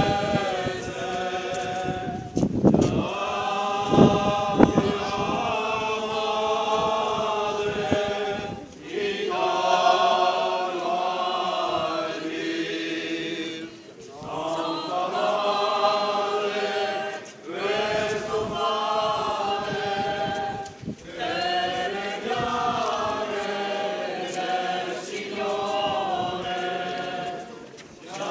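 A group of procession singers chanting a slow religious hymn together, in long held phrases with brief breaks for breath. A couple of dull low thumps come about four seconds in.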